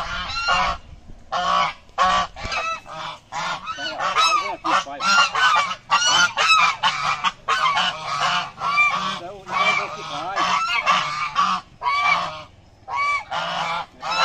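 A flock of African geese honking loudly and constantly, many overlapping calls several times a second, with a brief lull near the end.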